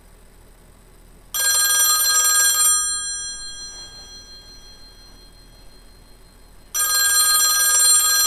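Bell ringer of a Western Electric model 500 rotary desk phone ringing on an incoming call: two rings about five seconds apart, each lasting about a second and a half and fading briefly after. The second ring is still going at the end. The owner thinks the ringer volume is turned down.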